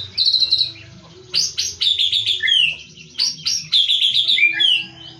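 White-rumped shama singing loud, fast trilled phrases, the 'cililin' imitation that keepers prize. A short burst at the start, a brief pause, then a longer run of rapid notes and downward slurs lasting most of the rest.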